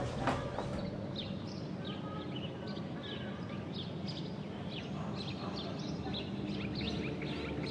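Birds chirping in quick, repeated short calls over a steady low background hum.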